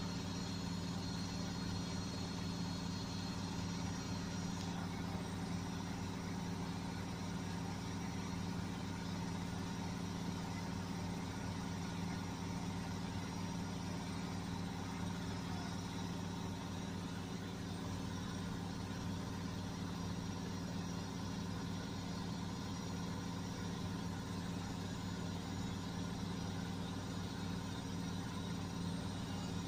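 Beko washing machine running steadily in its spin-and-drain cycle: a constant motor hum with no change in pitch.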